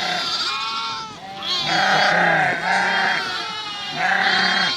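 A flock of Dorper sheep and goats bleating: many long, overlapping calls, one after another.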